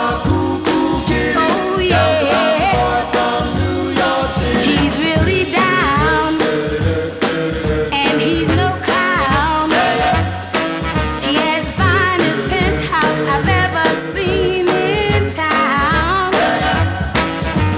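Music from a 1950s rock-and-roll record: a steady, bouncing bass beat under a wavering lead melody.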